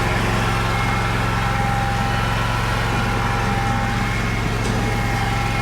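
Small gasoline engine running steadily at a constant speed, without revving up or down.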